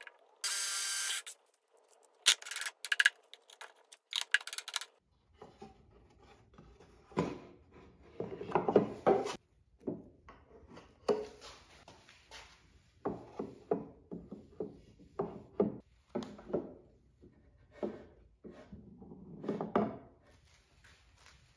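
Cordless drill running for about a second as it drives a screw into a wooden part, then several shorter bursts. After that, repeated light wooden knocks and rubbing as plywood parts and the dispenser's wooden lever are handled and fitted.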